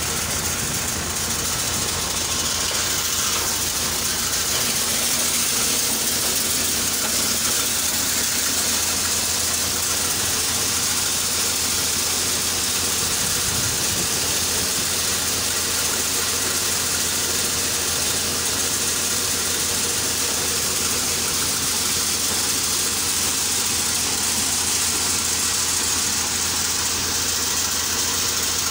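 Vishwakarma chickpea thresher running steadily as plants are fed in, together with a tractor's diesel engine; a constant low hum under a broad hiss.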